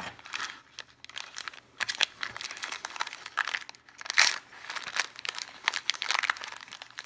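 Clear plastic bag crinkling as it is pulled open by hand, in irregular crackles with the loudest burst about four seconds in.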